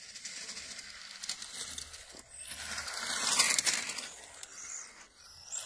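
Electric RC car driving on asphalt, a noisy rush of tyres and drivetrain that grows louder to a peak about three to four seconds in as it passes, then fades.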